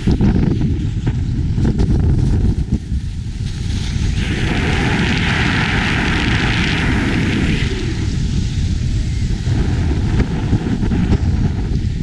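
Wind buffeting a moving action camera's microphone as it follows a snowboarder downhill, a steady low rumble. From about four to seven seconds in, a louder hiss of a board edge scraping across packed snow is heard.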